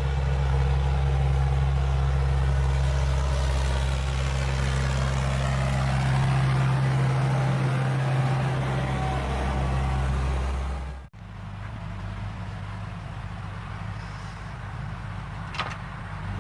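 Timberjack 810D forwarder's diesel engine running steadily under load. About eleven seconds in, the sound cuts off abruptly and a quieter engine sound carries on.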